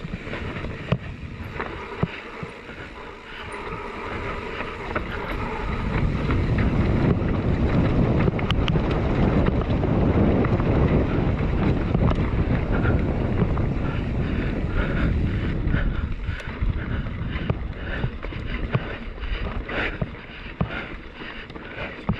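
Mountain bike descending a dirt trail at speed: wind buffeting the microphone over tyre roar, growing louder about six seconds in, with the bike rattling and knocking over rough ground near the end.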